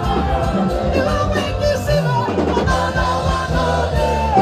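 Music with a singing voice over bass and a drum beat.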